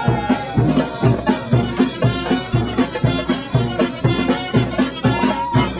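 Music with a steady drum beat and sustained melodic tones.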